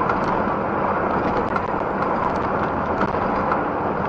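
Steady road noise and engine drone inside a truck's cab as it drives along a wet road, with tyre hiss from the wet asphalt, as picked up by a dashcam.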